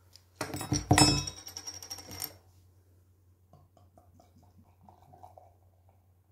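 A metal bottle cap is prised off a beer bottle and clatters down with a metallic jingle. A few seconds later beer glugs faintly out of the bottle into a glass in a quick run of small gulps.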